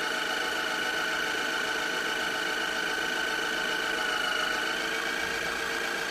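Breville Barista Express's built-in burr grinder motor running with a steady, high-pitched whine.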